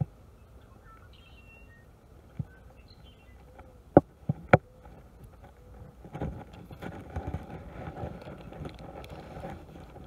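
Open-air background with a few faint bird chirps and several sharp clicks. From about six seconds in, rustling handling noise comes in as a hand rubs against and covers the body-worn camera, growing louder toward the end.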